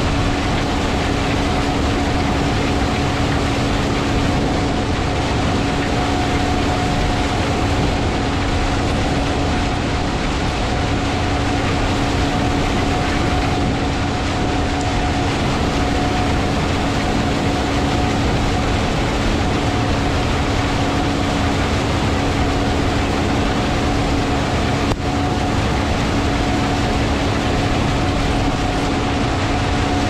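Combine harvester and tractor running steadily while harvesting corn: a constant heavy machinery drone with two steady hums.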